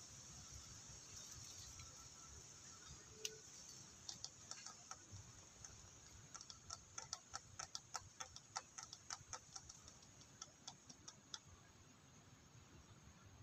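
A run of faint, sharp clicks, about three a second for several seconds, over a faint high steady hiss.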